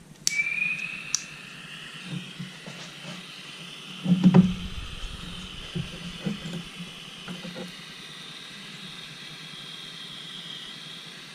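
Butane gas soldering iron hissing steadily with a faint whistling tone, starting with a sharp click just after the start. A knock about four seconds in, and a few lighter handling knocks.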